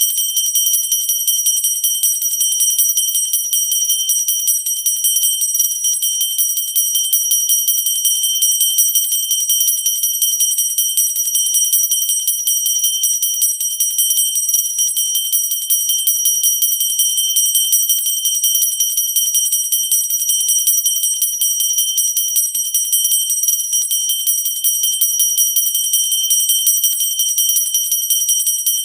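Pooja bell rung continuously with fast, even strokes, giving a steady, high-pitched ring.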